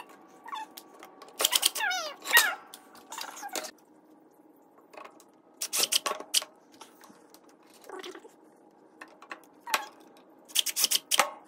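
Cordless DeWalt drill driving screws through a metal shelf bracket into a wooden board, in short bursts several times, with a quick run of clicks near the end.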